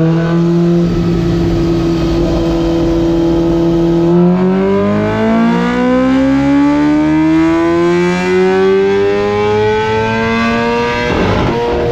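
BMW motorcycle engine running on a chassis dynamometer: it holds a steady note for about four seconds, then its pitch climbs smoothly and steadily for about seven seconds in a power run. It breaks off briefly near the end and settles on a steady, higher note.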